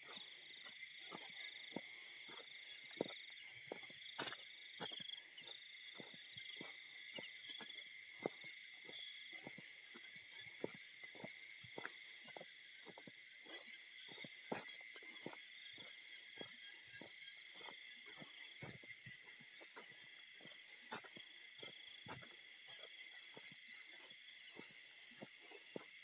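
Night chorus of crickets and other insects: steady shrill drones throughout, joined by a rapid pulsing trill higher up from about halfway until near the end. Irregular soft ticks and clicks run through it.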